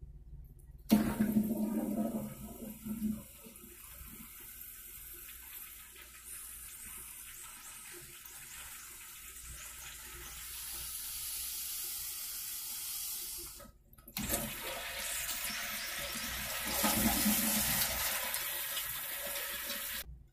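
Commercial toilet's manual flushometer valve flushing: a loud rush of water through the bowl starts about a second in and runs on. It breaks off sharply about 14 seconds in and starts again. It is the test flush of a freshly replaced spud gasket.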